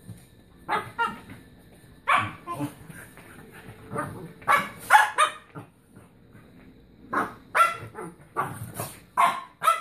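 Dogs barking in short, sharp bursts of two or three during rough play-fighting, about a dozen barks with brief pauses between the clusters.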